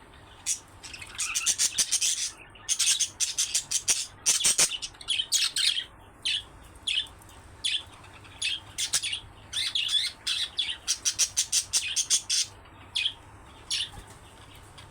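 Budgerigars chirping and chattering in quick runs of short, high calls, with brief pauses between the runs.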